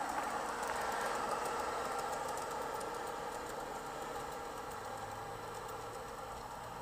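Gauge 1 model diesel locomotive and coaches running on garden track: a steady motor hum with wheel clicking over the rails, fading slowly as the train moves away.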